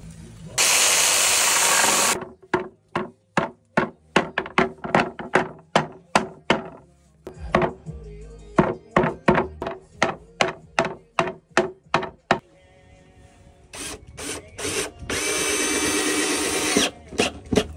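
A power saw cuts through wood for about a second and a half. A hammer then strikes a board over and over, about three blows a second, with a short pause partway through. Near the end a cordless drill runs for about a second and a half, driving a screw into the wood.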